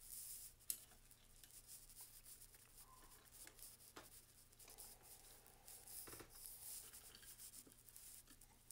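Faint handling of plastic LEGO bricks: soft rubbing and a few small clicks as pieces are pressed together, the sharpest click coming just under a second in.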